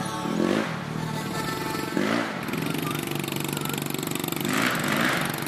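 Small Honda CRF four-stroke dirt bike running as it rides past, the engine revved up and eased off about three times.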